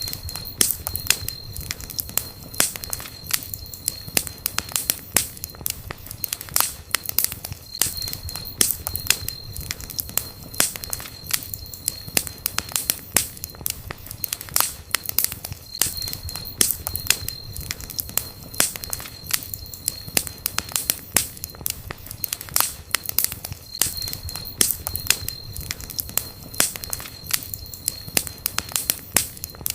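Campfire burning, with dense, irregular crackling and sharp pops of the wood over a low rumble of the flames.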